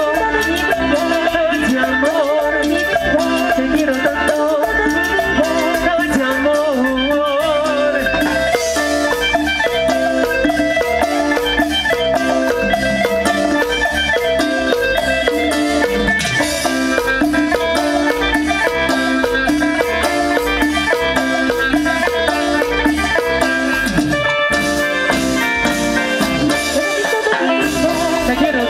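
Live tropical cumbia band playing an instrumental passage with no singing: a wavering lead melody over bass, drum kit and percussion, amplified through the stage PA.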